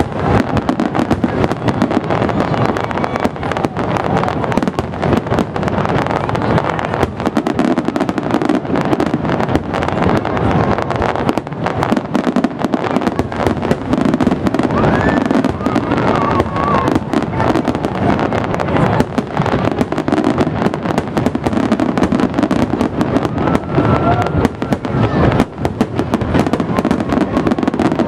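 Aerial fireworks shells bursting in a dense, unbroken barrage: many booms and crackles every second, without let-up.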